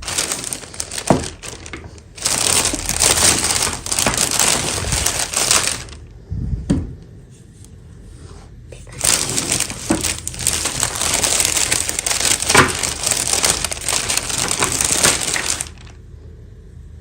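Plastic toy packaging being crinkled and crackled by hand, in two long spells of dense crackling with a quieter pause between them.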